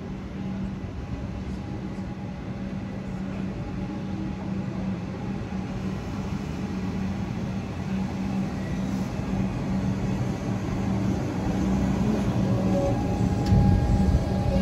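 Melbourne Comeng electric suburban train running into the platform, growing steadily louder as it comes close. A steady low hum runs throughout, and higher whining tones join near the end as it draws alongside.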